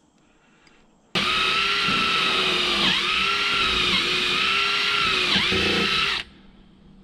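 Cordless drill starts about a second in and runs for about five seconds, boring the wire holes bigger through a deck seal on the boat's deck. Its pitch dips briefly three times, then it stops.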